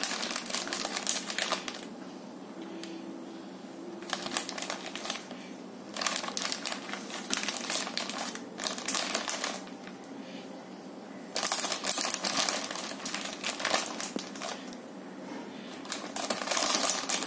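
A plastic fertiliser packet crinkling as it is squeezed and shaken to tip bio mix into a tub of soil, in about five bouts with quiet between.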